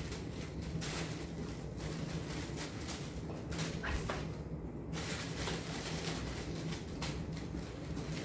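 Steady low hum with faint scattered rustling and handling sounds, as of handbags being moved about.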